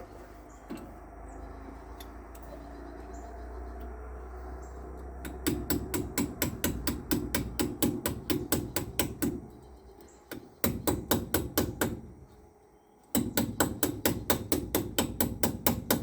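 A hammer tapping a battery cable terminal clamp down onto a tractor battery post: three runs of rapid, even, ringing metal taps, several a second, with short pauses between them.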